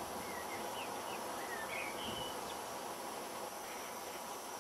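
Several short, faint bird chirps in the first half over a steady background hiss.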